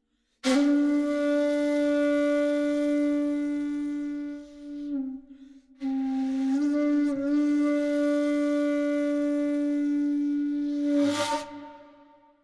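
Shakuhachi bamboo flute holding long, low notes: a sudden breathy attack, a sustained tone, a short dip and break about five seconds in, then another long held note that ends in a breathy burst of air and fades away.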